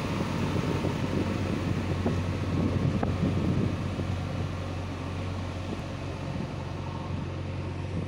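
JCB 3DX backhoe loader's diesel engine running with a steady low hum as the machine drives away, growing a little quieter about halfway through.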